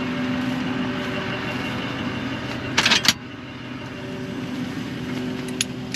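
An engine running steadily with an even hum, with a quick cluster of sharp metal clinks about three seconds in and another single click near the end.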